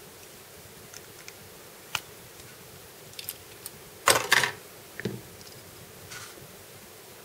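Small plastic model-kit parts being handled: a few scattered light clicks, then a short louder clatter of plastic pieces about four seconds in and another about a second later.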